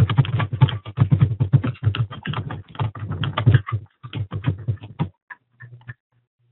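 Rapid typing on a computer keyboard, a quick run of key clicks that thins out to a few scattered taps about five seconds in.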